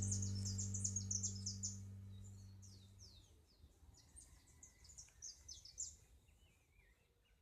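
Small birds chirping: a quick run of high chirps over a low held music chord that fades out about three seconds in, then scattered downward-sweeping chirps and a soft warble that thin out near the end.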